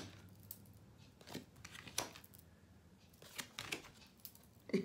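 Tarot cards being handled and laid down: a few faint, scattered clicks and short rustles of card stock.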